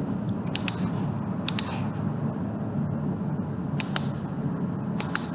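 Sharp clicks of a computer being worked at a desk, mostly in close pairs, about four times, over a steady low hum of room or fan noise.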